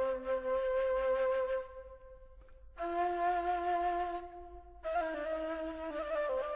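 Background music: a breathy flute playing long held notes, each lasting a couple of seconds, with a short lull about two seconds in and small pitch slides on the last note.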